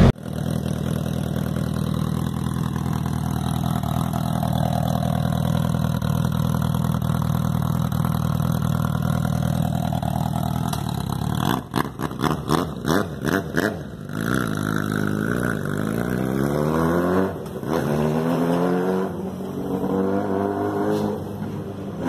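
Suzuki Bandit inline-four engine, breathing through a homemade exhaust tip made from a Coca-Cola can. It runs steadily, then about halfway through gives a rapid stuttering run of short throttle blips, then revs up and down several times.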